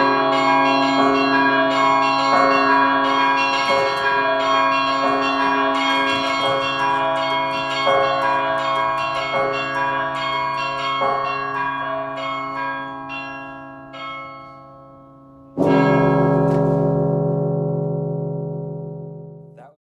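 The Rockefeller Memorial Chapel carillon, about 100 tons of bronze tower bells, played from its baton keyboard: struck bells ring over one another in a melody that thins out and dies away about 14 seconds in. Then a loud closing chord with deep low bells is struck, rings and fades, and cuts off suddenly just before the end.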